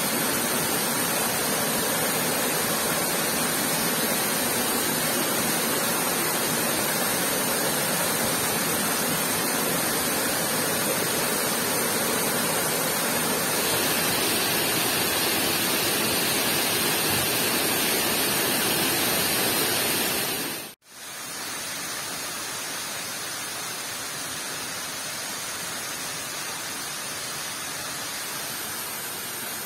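Steady rushing roar of falling water, heavy rain and waterfall together. It drops out for a moment about two-thirds of the way through and comes back a little quieter.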